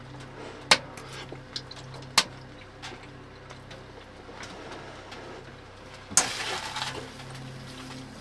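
A spoon clinking against a dish during a meal: a few sharp clinks, the loudest two about a second and a half apart, then a short scraping, rustling burst about six seconds in.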